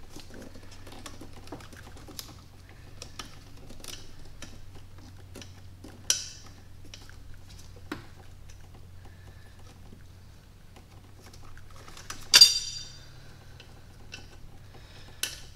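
Small metal parts being handled at the back of a V8 cylinder head: irregular light clicks and taps of a bolt, wire terminal and hand tool against the engine, with one sharp ringing metal clink about twelve seconds in. A low steady hum runs underneath.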